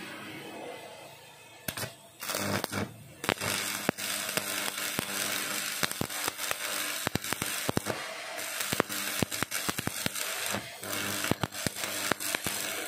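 Electric arc welding: a steady crackling hiss with many sharp pops, starting about two seconds in and breaking off briefly now and then.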